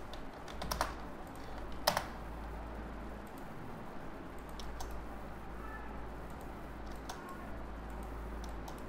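Scattered clicks of a computer mouse and keyboard, the sharpest about two seconds in, over a steady low electrical hum.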